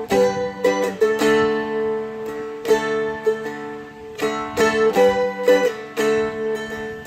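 Seagull Merlin M4, a four-string fretted dulcimer-type instrument, strummed with a pick through a chord progression, opening on a D chord with an added fourth, with one string ringing on as a drone under a dozen or so strums and picked notes.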